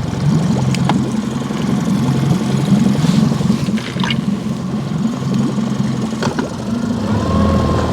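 Boat motor idling steadily, with water splashing and sloshing around the hull and a few light clicks.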